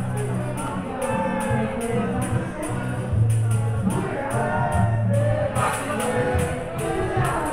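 Restaurant waitstaff singing a birthday song to music, with a tambourine shaken on a steady beat of about four strokes a second.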